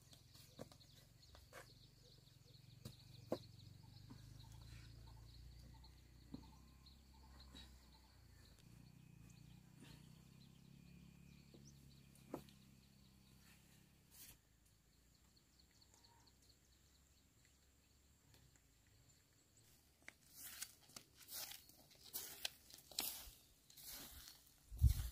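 Quiet background with a faint low hum and a few isolated clicks, then from about twenty seconds in an irregular run of crunching and rustling noises.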